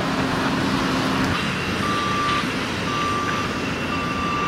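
Vehicle backup alarm beeping, a single steady pitch about once a second, starting a little under two seconds in, over a steady background of street and engine noise.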